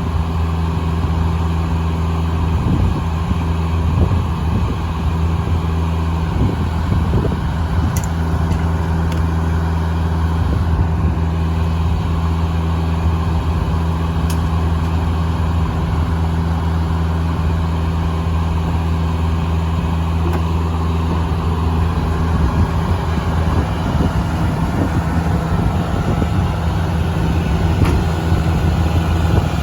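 The engine powering a Foley Belsaw circular sawmill, running steadily at a constant speed.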